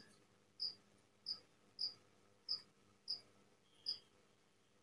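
A cricket chirping faintly, short high chirps repeating evenly about one and a half times a second.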